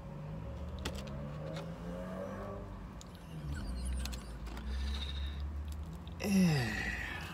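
A person chewing and biting into toasted sourdough-style bread, with small crunching clicks over a steady low hum. A little over six seconds in comes a short, louder falling vocal sound.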